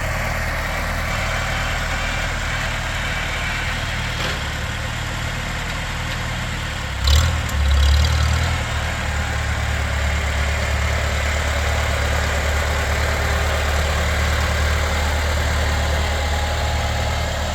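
Farmall Super C tractor's four-cylinder engine idling steadily. About seven seconds in there is a brief clunk and a short surge, after which the engine runs a little louder.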